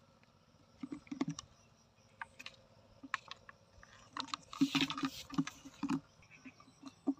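Small hooked fish flapping on the wet bottom of a plastic bucket: irregular taps and slaps against the plastic with a little splashing, a few about a second in and a busier flurry between four and six seconds.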